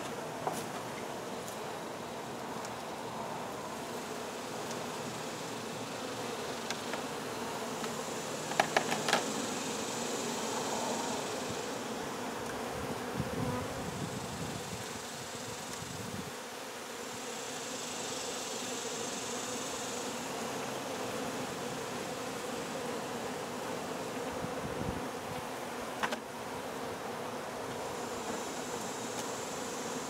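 A honey bee colony buzzing in a steady hum around its exposed nest, stirred up by having its comb cut out. A few sharp clicks come about nine seconds in and one more near the end.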